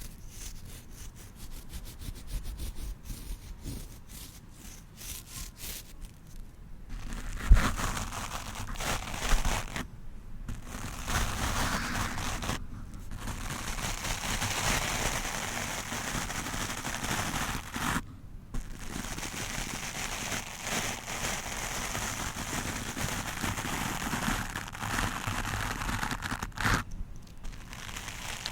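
Stiff-bristled wooden brush scrubbed roughly against a microphone: rapid light flicks at first, then continuous scratchy brushing from about seven seconds in, broken by a few short pauses.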